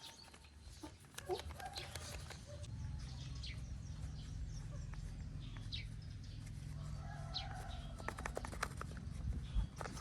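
Faint short bird chirps over a low steady hum that sets in a couple of seconds in, with a run of small clicks near the end.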